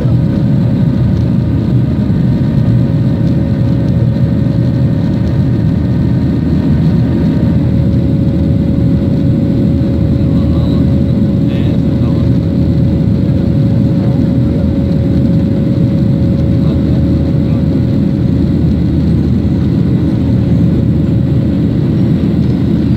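Cabin noise of a Boeing 737 airliner climbing after takeoff: the steady rumble of its jet engines and the airflow, heard from a window seat over the wing. A steady hum runs in the engine sound, and a higher set of whining tones drops out about seven seconds in.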